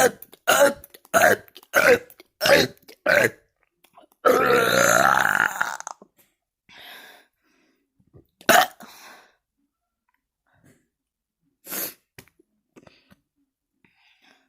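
A person burping: a quick run of short, loud burps about one every half second, then one long drawn-out burp of nearly two seconds about four seconds in. After that come single sharp burps with pauses between, one about halfway through and another a little later.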